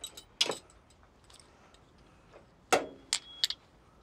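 A few sharp metallic clicks and clinks of hand tools being handled: one about half a second in, then a quick run of three near the end, the last with a brief ring.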